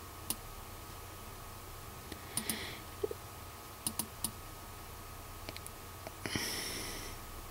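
Computer mouse buttons clicking, about a dozen scattered single clicks and quick double clicks, over a faint steady hum. A soft rushing sound lasts about a second near the end.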